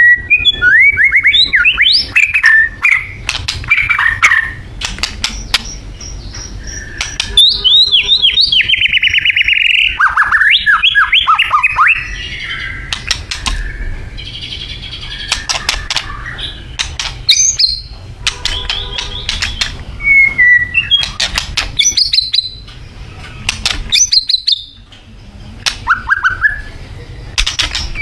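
White-rumped shama (murai batu) singing loudly: phrase after phrase of varied whistles and rapid trills mixed with sharp clicking notes, with short pauses between phrases.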